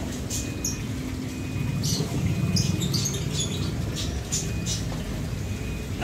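Short, high-pitched squeaks and chirps from small caged animals, repeating irregularly over a low background murmur.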